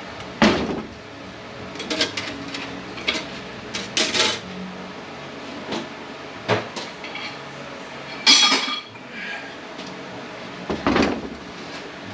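Steel tools and transmission parts clinking and clanking on the bench while a snap ring is worked out of a ZF 9HP48 transmission: about seven sharp metal knocks, the loudest about eight seconds in with a brief ring.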